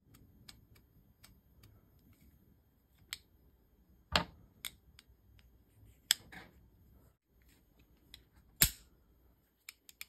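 Metal clicks from a CMC Rescue auto-locking carabiner being worked by hand: the spring-loaded gate and twist-lock sleeve snap shut and lock with a series of sharp clicks, the loudest about four seconds in and near the end.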